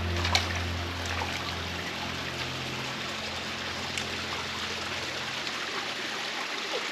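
A stream of water running steadily, with a continuous even rush.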